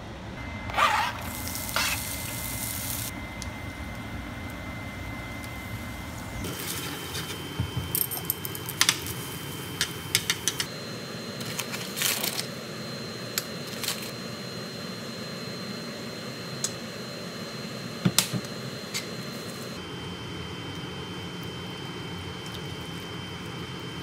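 Stovetop cooking sounds while udon noodles are stir-fried in a frying pan: a steady hiss and hum with a faint high whine, and scattered clicks and taps of a utensil against the pan.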